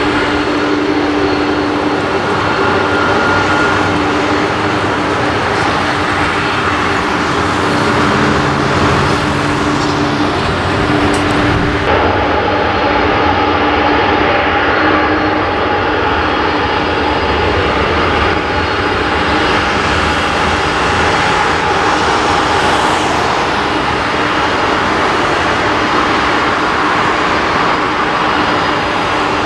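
McDonnell Douglas MD-11F freighter taxiing on its three jet engines: a steady jet whine over a rumble, with the tone shifting about twelve seconds in.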